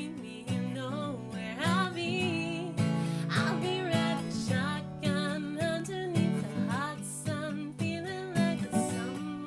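A woman singing while strumming an acoustic guitar, her voice wavering with vibrato over the guitar chords.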